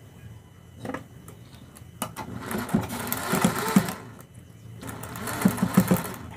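DIYA domestic straight-stitch sewing machine sewing in two short runs of rapid, even stitches with a brief pause between, after a single knock about a second in. It is putting a light tacking stitch across crossed fabric cords.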